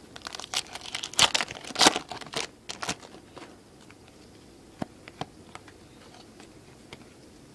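Foil wrapper of a baseball card pack crinkling and tearing open for about three seconds, then a few light clicks and taps as the cards are handled.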